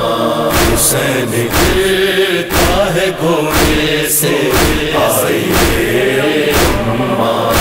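Noha interlude: a chorus of voices chanting, with a sharp beat about once a second.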